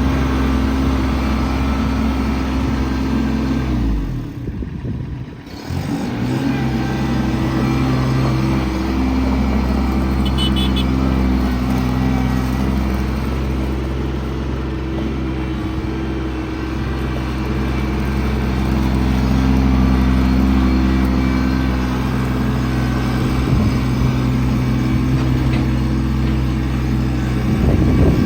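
Kubota LX2610 compact tractor's three-cylinder diesel engine running steadily. About four seconds in the sound drops away briefly, with the engine pitch sagging, then comes back.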